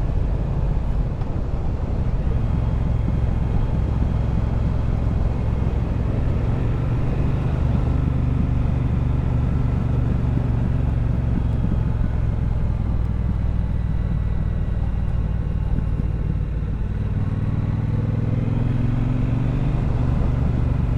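Triumph Bobber's 1200 cc parallel-twin engine running steadily while riding, rising in pitch near the end as the bike speeds up.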